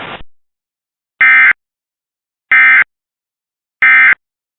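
Emergency Alert System end-of-message code: three identical short, shrill bursts of digital data tones, about 1.3 seconds apart, marking the end of the alert. Hissy broadcast audio cuts off just before the first burst.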